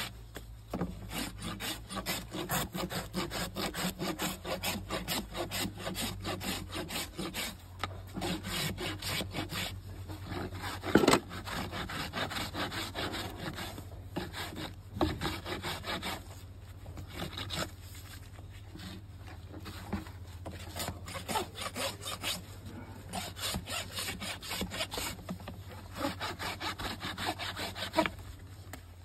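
Farrier's hoof rasp filing a Shire horse's hoof: quick, repeated scraping strokes with short pauses, lighter for a while in the second half. A single loud knock comes about eleven seconds in.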